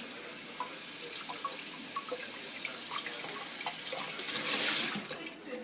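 Cold water tap running into a water pistol's small plastic reservoir tube to fill it, a steady hiss that grows louder for a moment near the end and then stops abruptly.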